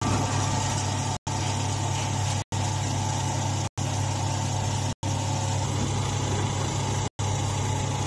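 Hydraulic straw baler's power pack, its electric motor and hydraulic pump, running with a steady low hum. The hum drops out completely for a split second about every second and a quarter.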